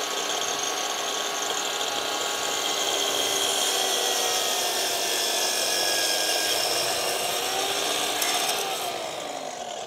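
Sliding mitre saw running and cutting wood: a steady motor whine over the rasp of the blade. The pitch sags a little partway through, then the saw winds down near the end.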